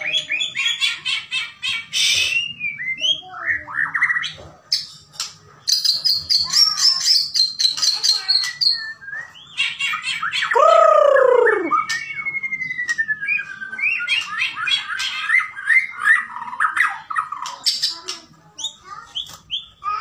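Bahorok-type white-rumped shama (murai batu) singing a long, varied song of rapid trills, chattering phrases and clear whistles, with a loud low note sliding down in pitch about ten seconds in.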